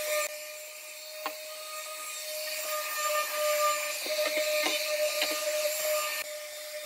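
Corded Dong Cheng electric palm sander running with a steady hum, its sandpaper pad scrubbing over pine boards. A few short knocks come through as the pad bumps the wood.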